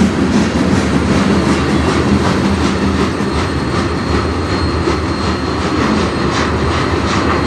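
Freight cars of a manifest train rolling past, a continuous rumble with steel wheels clicking over the rail joints a few times a second.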